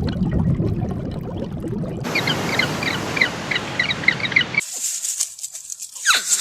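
A sequence of separate animal sound clips cut together: a low rumbling noise, then a bird chirping rapidly over background noise for about two and a half seconds, then a high hiss with a few quick falling squeals near the end.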